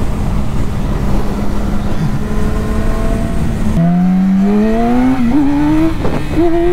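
Yamaha R6 inline-four engine at a steady cruise under wind noise; about four seconds in the throttle opens and the engine note climbs steadily as the bike accelerates.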